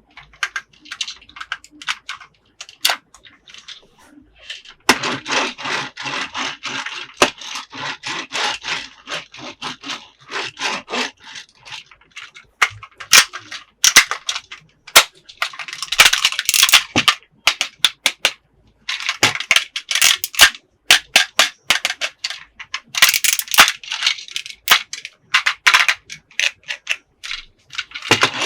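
Hard plastic toy pieces clicking, tapping and rattling as an Anpanman toy house playset and its figures are handled. There is a denser, continuous stretch of rattling from about five to eleven seconds in, and bunched clicks later.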